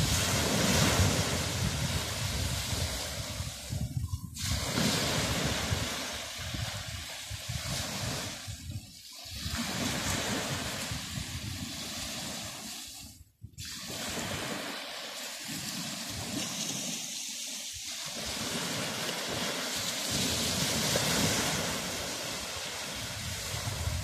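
Small sea waves breaking and washing up a sandy beach: a continuous rush of surf that swells and eases every few seconds. The sound briefly drops out about thirteen seconds in.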